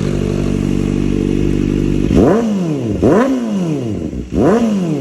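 Kawasaki ZX-4RR's 399 cc inline-four, fitted with an aftermarket Orion muffler, running steadily, then blipped three times about two seconds in: the revs snap up and fall back each time.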